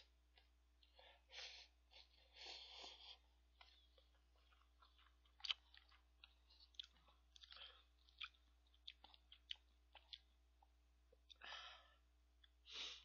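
Faint slurping and chewing of instant cup noodles, with several short hissy slurps and small clicks in between.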